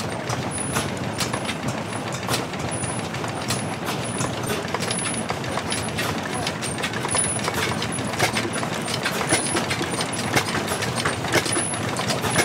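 Old stationary engines running together, a dense mechanical clatter full of clicks and knocks, with a faint high tick repeating about every two-thirds of a second.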